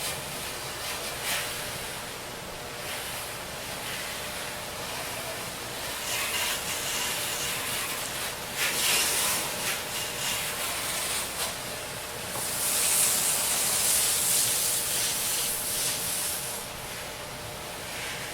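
Pressure washer spraying water, a steady hiss that grows louder and brighter twice, about halfway through and again a little later, over a faint steady hum from the machine.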